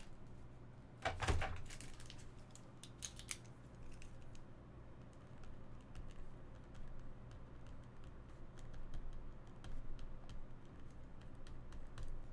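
Irregular light key clicks of typing on a computer keyboard, with a brief louder rustle about a second in, over a steady low hum.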